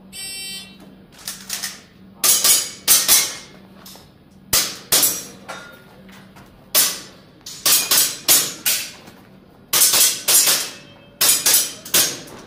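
Shot timer beep, then a string of sharp airsoft pistol shots, mostly fired in quick pairs and short runs, about two dozen in all.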